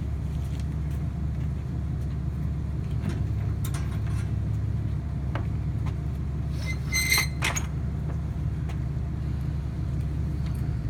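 Steady low rumble of an idling vehicle engine, with a few scattered knocks and a ringing metallic clang about seven seconds in.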